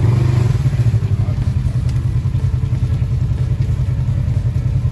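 Side-by-side UTV's engine running at low, steady revs with a fast low pulse as the buggy crawls through a muddy trench.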